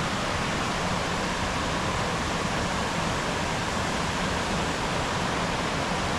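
Steady rushing of the Housatonic River's waterfall and rapids, the river running high just after a heavy thunderstorm.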